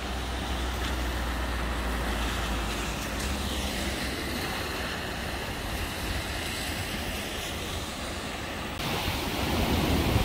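Steady rushing of a river in flood, with wind rumbling on the microphone; the rush gets louder and fuller about nine seconds in.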